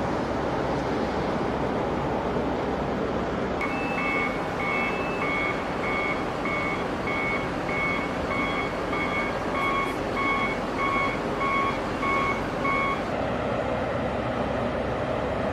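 Wheel loader with forklift tines running its diesel engine while moving a shipping container. A reversing alarm beeps at a steady pace, a little under two beeps a second, starting a few seconds in and stopping a couple of seconds before the end.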